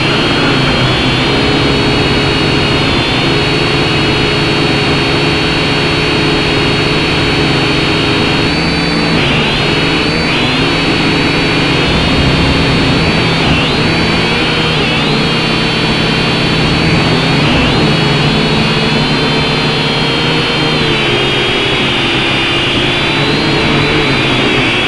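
A small drone's electric motors and propellers whir loudly, heard through its own onboard camera. Several pitches shift up and down together every few seconds as the throttle changes.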